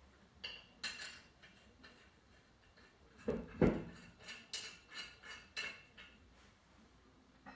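Metal clinking and knocking while a steel-rimmed winter wheel is fitted to a car: a run of sharp clinks of lug nuts and tools, with one heavier knock about three and a half seconds in.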